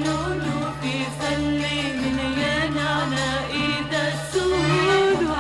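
Music: an instrumental passage of an Arabic song, a wavering melody over a steady low bass note.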